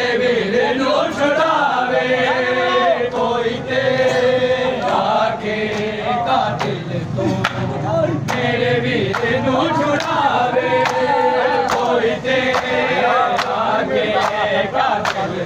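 A group of men chanting a Punjabi noha refrain in unison, crossed by sharp slaps about once a second from hands striking bare chests in matam.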